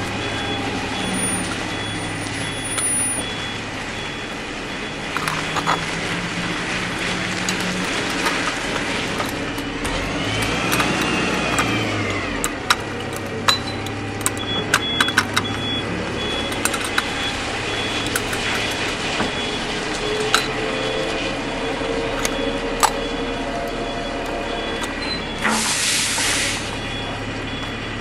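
Heavy truck engine running steadily, with scattered sharp clicks of plastic toy parts being handled. A short hiss like an air-brake release comes near the end.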